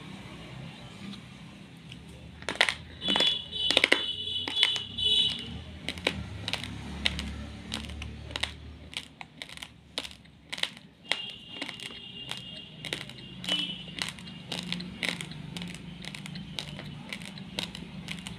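Dry raw basmati rice grains clicking and crunching as they are handled: a string of sharp, irregular clicks, loudest in a cluster about three to five seconds in. A high thin tone comes and goes in the background.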